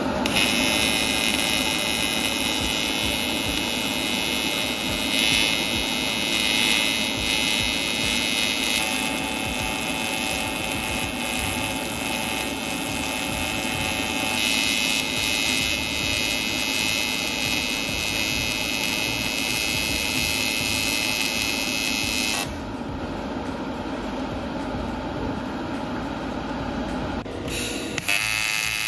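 Square-wave AC TIG welding arc from a Taiwan Power TIG-200ADP inverter welder, set without pulse, buzzing steadily. About 22 seconds in its higher buzz drops away for some five seconds, then comes back near the end.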